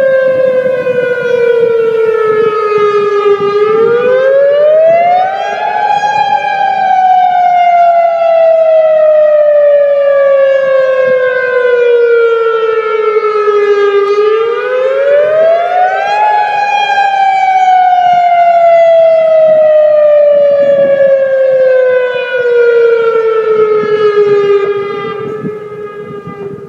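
Extremely loud outdoor emergency warning siren sounding its monthly test: a rooftop wailing tone that climbs quickly over about two seconds, then sinks slowly over about eight, twice over. Near the end the pitch settles low and the sound fades away.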